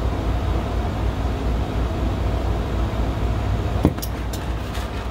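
Steady low machinery hum with a faint steady tone. About four seconds in there is a sharp knock, followed by a few light clicks.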